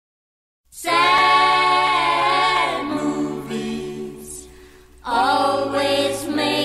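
Background vocal music: singing voices holding long notes, a cappella. It starts just under a second in after dead silence and dips briefly around four to five seconds before swelling again.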